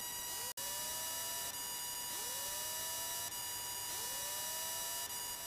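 Steady electrical hum and hiss on the cockpit intercom audio, made of several high steady tones, with a faint rising whine repeating about every two seconds. The sound drops out briefly about half a second in.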